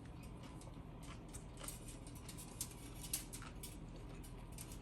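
Faint scattered clicks and crackles of someone chewing a sandwich close to the microphone.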